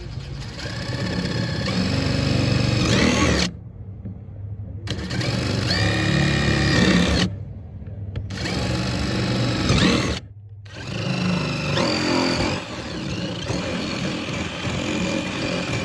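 Power drill with a large bit boring a hole, run in several bursts of a few seconds each that stop abruptly, its motor pitch rising as each burst spins up.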